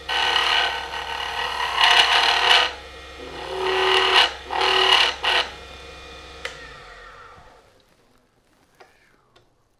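Woodturning lathe running while a skew chisel scrapes into the spinning wood-and-plastic ring blank in three bouts of cutting, a scraping with a ringing tone, widening the bore so the stainless steel ring core will go in straight. About six and a half seconds in the lathe is switched off and its hum dies away.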